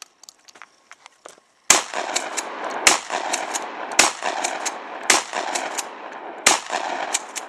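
A 12-gauge shotgun loaded with 00 buckshot fired five times, about a second apart, after a short quiet start; each loud shot is followed by echo that rolls on between shots and fades after the last.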